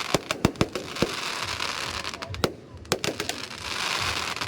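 Aerial fireworks going off: a quick run of sharp bangs in the first second, another cluster a little past halfway, with a crackling hiss from bursting shells between them.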